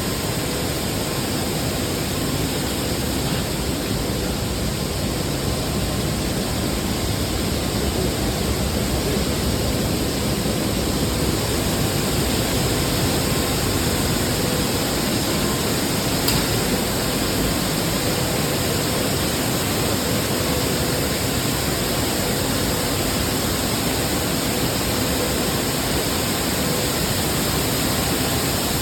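Maize milling machinery running steadily: a continuous loud wash of noise with a faint steady hum.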